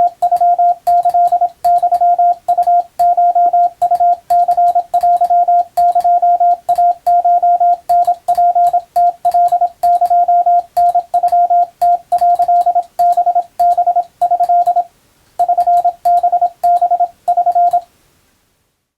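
Japanese Wabun Morse code sent as a single steady tone keyed on and off in dots and dashes, for receiving practice. It pauses briefly near the end and then stops.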